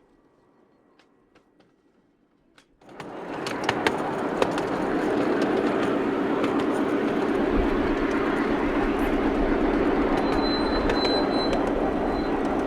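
Miniature railway train running on its track: near quiet with a few faint clicks, then a steady running noise with scattered wheel clicks that starts suddenly about three seconds in.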